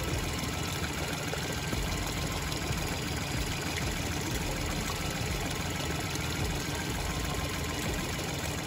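Suzuki DF60A three-cylinder four-stroke outboard motor running steadily at idle.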